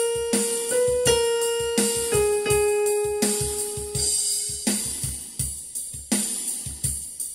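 Backing track for a vocal warm-up: a held melody note with keyboard accompaniment over a drum kit keeping a steady beat. The held note steps up and back down in pitch and stops about four seconds in, leaving the drums and keyboard.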